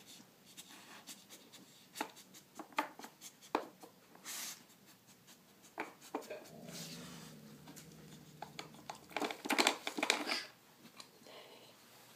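Plastic pieces of a Nina Ottosson dog puzzle clicking and knocking as a dog works it with nose and paws, in scattered taps with a quick flurry of louder clicks about nine to ten seconds in.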